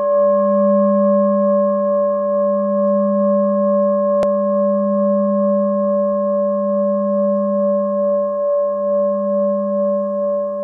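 Large metal singing bowl ringing steadily: a low tone with several higher overtones, wavering slowly in level. A brief click about four seconds in.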